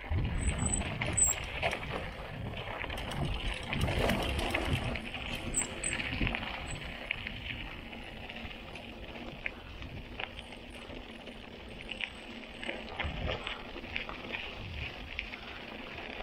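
Montra Rock 2.1 mountain bike rolling down a rough dirt track: steady tyre and rolling noise with frequent knocks and rattles as it goes over the bumps.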